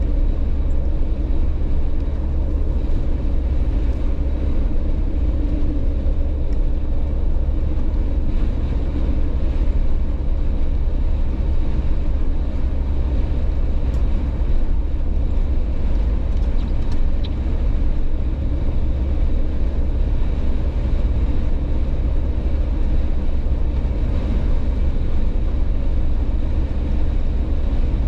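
Jeep driving at highway speed: a steady, unbroken low rumble of engine, tyre and wind noise.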